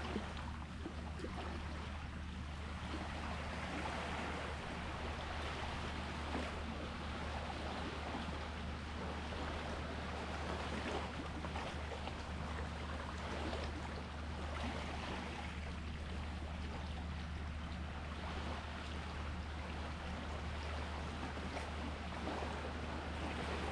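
Sea water washing steadily, with no distinct wave surges, over a steady low hum.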